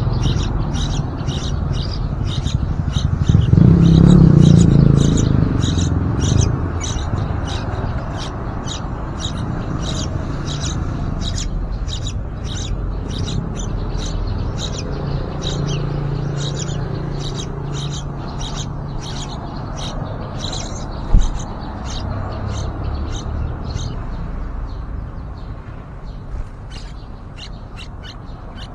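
Yellow-vented bulbul chicks giving short, high begging chirps over and over, about two to three a second. A low rumble swells for a few seconds early on, and there is one sharp knock about two-thirds of the way through.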